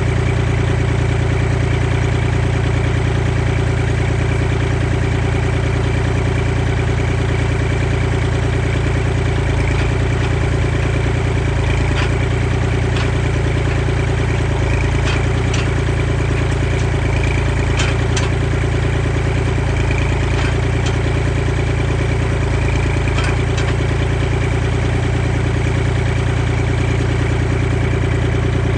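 Kubota L2501 tractor's three-cylinder diesel engine running steadily at a fast idle, with a few faint clicks about halfway through.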